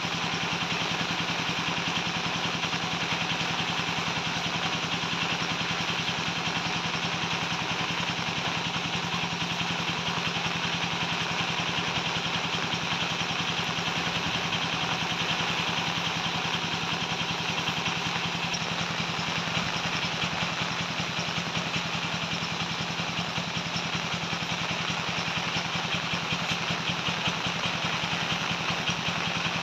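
Pressure washer running steadily: a motor drone with rapid, even pulsing under the hiss of the water jet.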